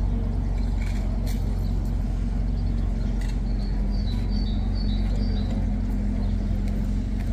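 Steady low rumble of city street ambience with a low hum, and a small bird chirping a few short notes about four to five seconds in.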